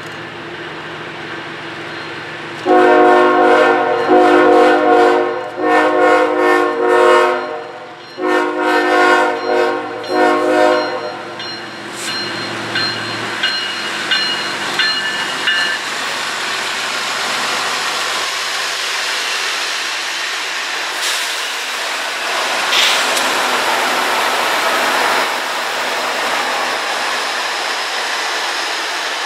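Freight locomotive's multi-chime air horn sounding four blasts over about eight seconds as the train approaches. It is followed by the steady rumble of the diesel locomotives and freight cars passing close by, with wheels clicking over the rail.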